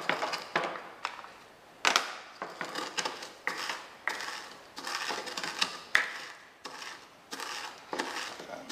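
Wooden pestle pounding and grinding toasted whole spice seeds (coriander, cumin and fenugreek) in a wooden mortar. It makes irregular knocks and crunches, with the hardest strikes about two seconds and six seconds in.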